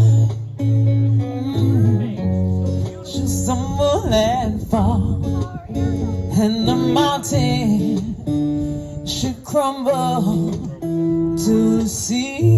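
A woman singing a slow song with vibrato into a microphone, over strummed acoustic guitar accompaniment with low held notes.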